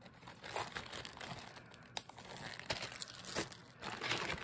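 Plastic zip-top bags crinkling and rustling as hands handle them in a packed shipping box, with a sharp click about two seconds in.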